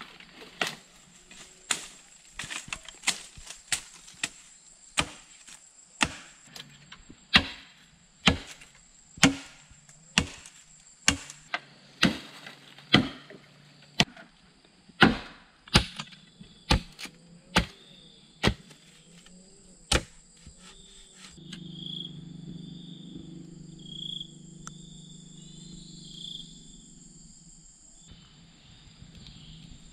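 Chopping into large green bamboo with a blade: a long run of sharp, uneven strikes, about one to two a second, that stops about two-thirds of the way through. Insects trill steadily on a high note underneath.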